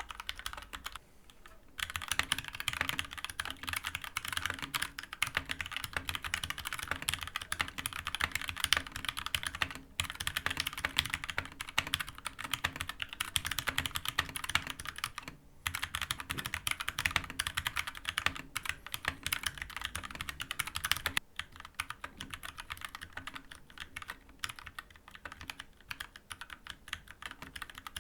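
Fast typing on an Akko 3061S 60% mechanical keyboard with Gateron Orange tactile switches and PBT keycaps: a dense run of key clicks, with short pauses, that thins to sparser keystrokes in the last quarter. The switches are unlubricated, and the board sounds a little hollow.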